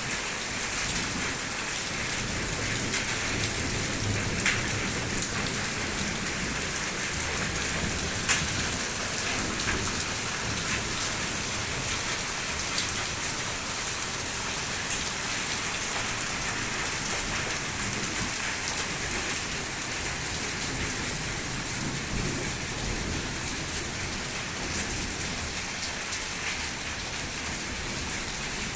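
Heavy rain mixed with small hailstones, a steady loud hiss with now and then a sharp click of a stone striking.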